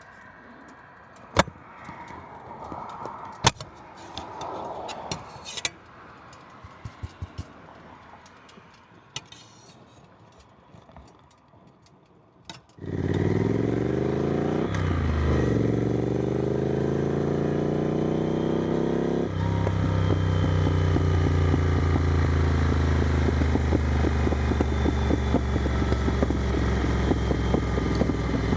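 A few scattered clicks and knocks, then about halfway through the Triumph Scrambler 900's parallel-twin engine, breathing through an aftermarket exhaust, comes on suddenly, its pitch swinging up and down for a couple of seconds before it runs steadily, a little louder from about two-thirds of the way through.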